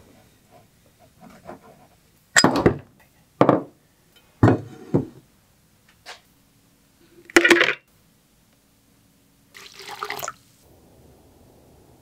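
Suspension fork parts being handled on a workbench: about six short, loud scrapes and knocks, spread irregularly.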